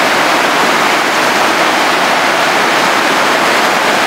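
Stream in spate after a night thunderstorm, its muddy floodwater rushing and churning, loud and steady.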